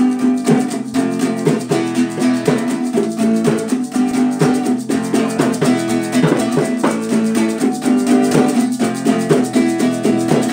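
Acoustic guitar strummed in a steady rhythm, sounding full chords with a percussive attack on each stroke.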